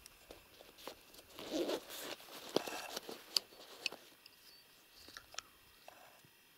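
Rustling and crackling close to the microphone, with several sharp clicks, dying down after about four seconds.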